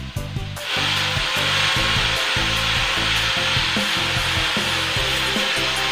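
Electric angle grinder with a sanding pad sanding the face of a plywood door: a steady abrasive hiss that swells up about half a second in and then holds.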